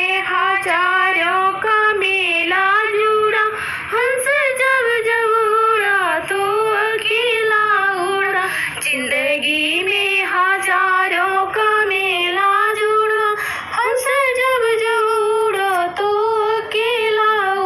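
A woman singing a Hindi bhajan, with long held notes in a bending melody.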